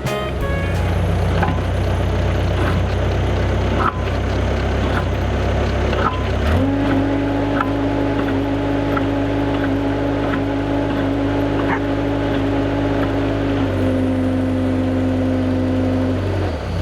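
Skid steer engine idling, then throttled up about six and a half seconds in, presumably to drive the hydraulic auger. It holds a steady higher speed, eases slightly, and drops back to idle near the end.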